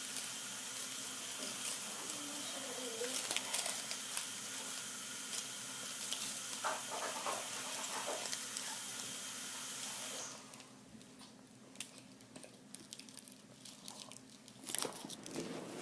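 Water tap running steadily while chocolate is washed off hands, turned off about ten seconds in; a few faint clicks and rustles follow.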